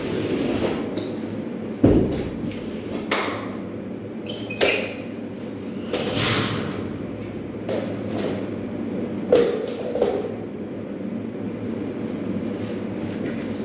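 Drywall pole sander rasping across a plasterboard wall in a few separate strokes, with a sharp knock about two seconds in and softer knocks later, over a steady low hum.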